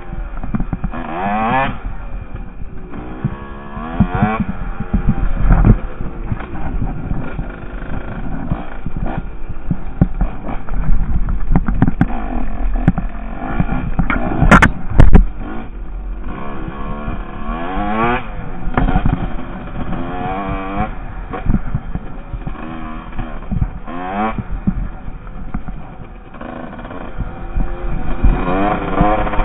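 Husqvarna WR 150 two-stroke dirt bike engine revving up and dropping back again and again as the bike is ridden along a trail, with clatter and knocks from the bumps. There is a loud sharp knock about halfway through.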